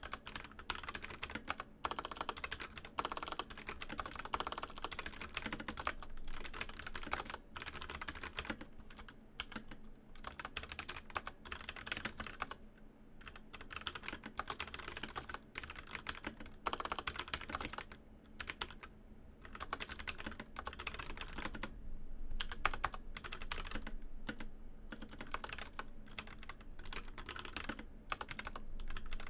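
Continuous fast typing on a Razer BlackWidow Elite mechanical keyboard with Razer Orange tactile switches: a dense patter of keystroke clicks, broken by a couple of short pauses.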